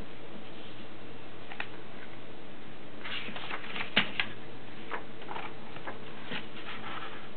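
A sheet of paper being handled and folded on a wooden tabletop: scattered rustles and crisp crackles, with a sharp click about four seconds in.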